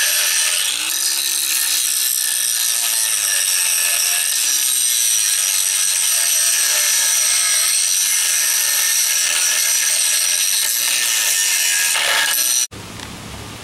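Cheap electric angle grinder with an aluminum grinding disc, running steadily while it grinds the old weld off an aluminum tube: a continuous high whine over grinding hiss. It stops abruptly near the end.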